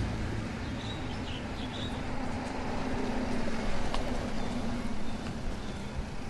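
A BMW 3 Series saloon driving slowly up and past at close range: a steady low engine hum with tyre noise on the road, getting louder about halfway through as the car comes nearest.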